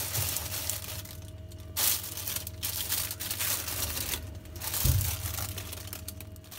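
Thin plastic bag crinkling and rustling as it is handled and pushed onto a fridge shelf, with a louder rustle about two seconds in and a soft thump near the end.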